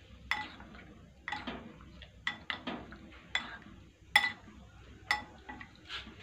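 Metal spoon and wooden chopsticks clinking against a ceramic bowl while fish pieces are tossed in beaten egg: about a dozen short, bright clinks at an irregular pace, with soft wet stirring between them.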